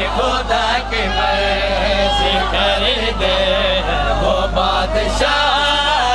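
Men chanting a devotional mourning refrain together in praise of Ali, with a few sharp slaps at uneven moments from hands striking chests in matam.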